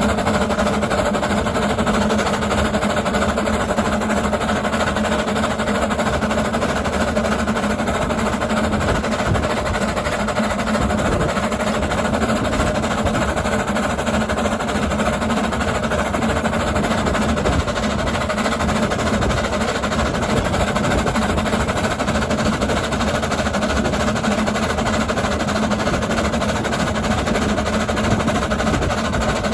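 Quarry Hunslet 0-4-0 saddle-tank steam locomotive puffing steadily, its exhaust beats running on evenly without a break.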